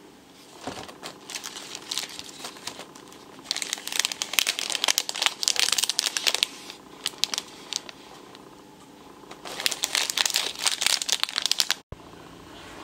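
Clear plastic wrappers on individually wrapped chocolates crinkling as they are handled in their box. The crinkling comes in bouts, loudest from about four to six and a half seconds in, and again near the end.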